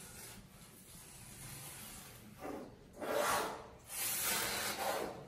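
Diluted shampoo being applied to and worked into a golden retriever's wet coat: a quiet start, then several rough, hissing rubbing strokes from about two and a half seconds in.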